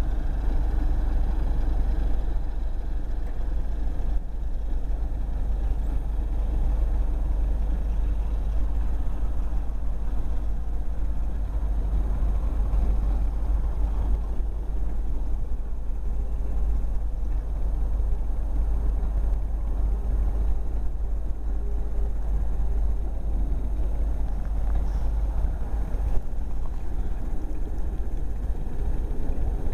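Passenger coaches rolling slowly past on an adjacent track, a steady low rumble with no sharp clatter.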